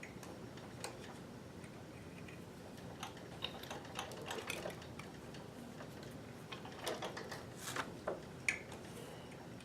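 Light, irregular ticks and clicks from working at a Consew industrial sewing machine, with a few sharper clicks toward the end.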